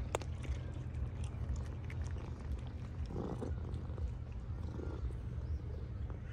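Calico cat chewing dry kibble close to the microphone: a run of small, irregular crunches and clicks, with one sharper click right at the start. A steady low rumble runs underneath.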